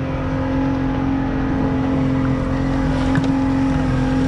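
Motorboat engine running under way, a steady even drone that holds its pitch.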